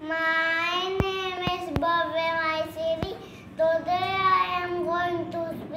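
A young boy's voice chanting his lines in a long, drawn-out sing-song, with held pitches. There are several sharp clicks between about one and three seconds in.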